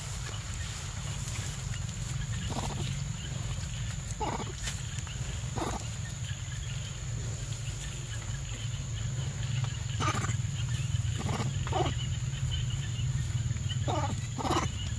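A young macaque eating fruit close by: short wet smacking and chewing sounds every second or two, over a steady low rumble and a steady high tone.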